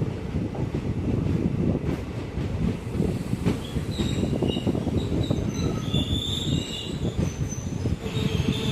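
Passenger train running on rails: a steady rumble and rattling clatter of coach wheels on track, with high-pitched wheel squeal coming and going from about four seconds in.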